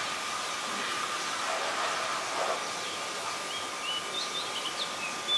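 Outdoor rural ambience: a steady hiss with a thin steady tone, and from about three seconds in, a scatter of short, high bird chirps.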